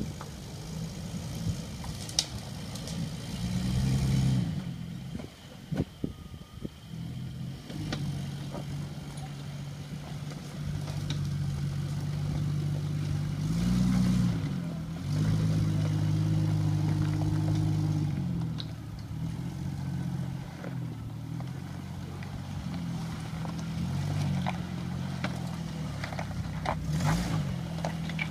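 A 1997 Jeep Grand Cherokee's engine works off-road, running steadily and revving up about three times as it crawls up a rocky bank. Scattered knocks and clatter sound over it.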